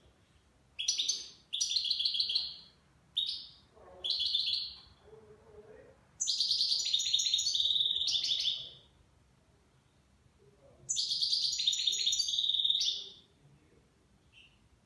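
Caged European goldfinch singing in bursts of high, twittering and buzzy phrases with short pauses between them. The longest phrase, of about two and a half seconds, comes near the middle, and another follows a couple of seconds later. The song is in the Levantine 'Shami' style that keepers prize.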